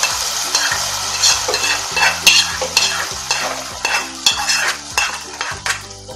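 Hot-oil tempering of mustard seeds, curry leaves and dried red chillies sizzling as it is poured into a yogurt-based curry, with a metal spatula scraping the iron kadai in quick strokes. The sizzle dies down steadily.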